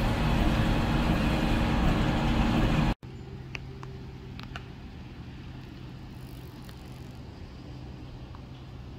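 Farm machinery engine running loudly. It cuts off abruptly about three seconds in, giving way to a quieter, steady engine hum with a few light clicks.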